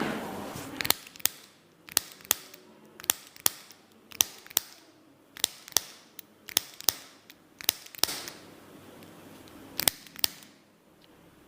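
A run of sharp clicks during a chiropractic treatment, about twenty in ten seconds at uneven spacing.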